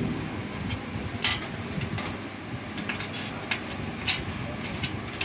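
Scattered small metallic clicks and taps of screws and a screwdriver against a desktop PC case as the motherboard standoffs are tightened, over a steady background hum.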